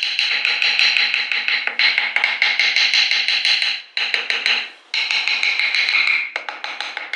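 Rapid, evenly repeated tapping of a carving tool striking wood, several strikes a second, with a steady ringing tone under it. It breaks off briefly a little past halfway, then resumes.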